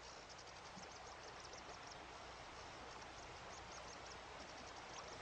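Faint outdoor night ambience: insects chirping in quick, high-pitched pulses over a low steady hiss.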